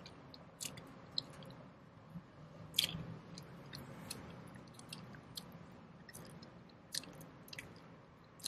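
Chewing gum being chewed with the mouth close to the microphone: scattered wet clicks and smacks, the loudest just before three seconds in.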